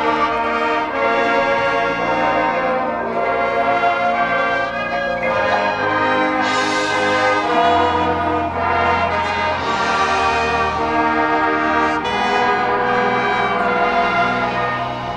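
Marching band brass section playing loud, sustained chords over deep bass notes, with two swells of high hiss partway through.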